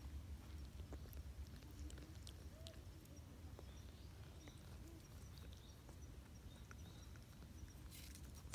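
Near silence: faint outdoor background with a low rumble and scattered soft clicks, then a short rustle near the end.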